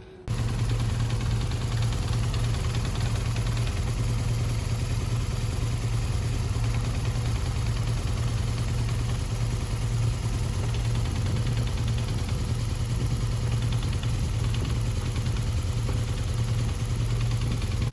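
BMW R1200GS air-cooled boxer-twin engine idling steadily with a rattle from the gearbox and clutch area, the noise that comes when the clutch is released. The mechanic traces it to a clutch plate whose splined hole has worn oversize on the gearbox input shaft through metal-on-metal contact.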